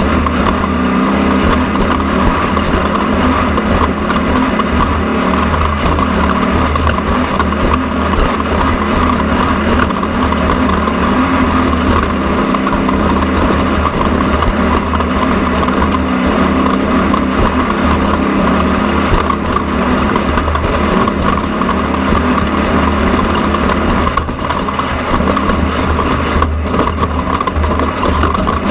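An engine running steadily at a constant speed, with no revving or change throughout.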